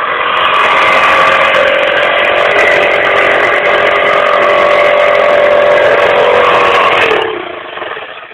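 Electric jigsaw running as it cuts a wooden board, a loud steady motor-and-blade sound. It is switched off about seven seconds in and the motor winds down with a falling pitch.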